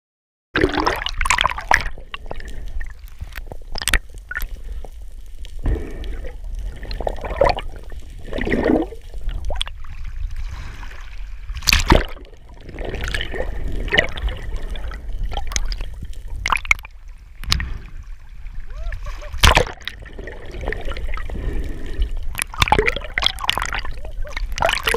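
Underwater sound heard through a speargun-mounted camera: a muffled wash of moving water and gurgling, with scattered sharp clicks and knocks, two of them louder, about halfway through and again a few seconds later.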